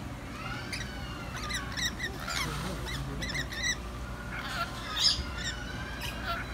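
Rainbow lorikeets calling: a rapid string of short, shrill chirps and squawks, with a few sliding notes. The loudest call comes about five seconds in.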